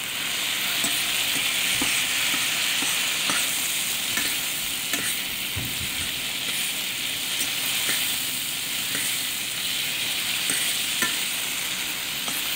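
Sliced onions sizzling steadily as they fry in butter in a metal skillet, with a fork stirring them and clicking against the pan now and then.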